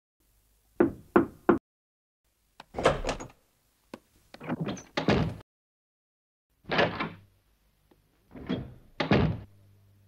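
Cartoon sound effects of a door: three quick knocks about a second in, then several short clusters of heavier door thuds and bangs, each separated by silence.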